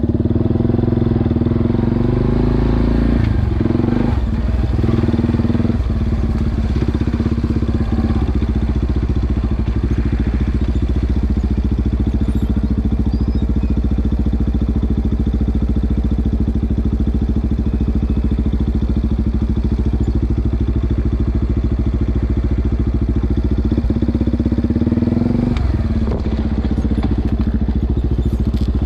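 An ATV engine running steadily under way, its pitch shifting a few seconds in and again near the end as the throttle changes.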